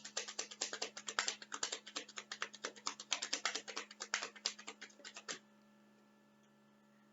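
Typing on a keyboard: a quick, irregular run of key clicks that stops about five seconds in, leaving a faint steady hum.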